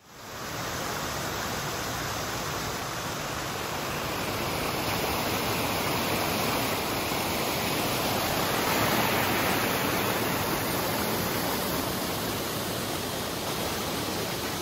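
River water rushing steadily, fading in over the first second.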